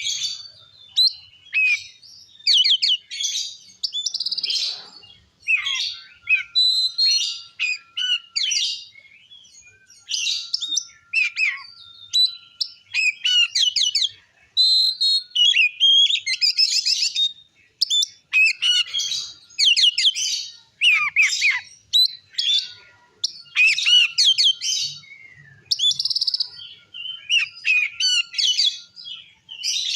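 Oriental magpie-robin (kacer) singing loud, almost unbroken song: varied clear whistles and rapid sweeping, chattering phrases with only brief pauses, the full-throated 'ngeplong' song used as a lure to stir other kacer.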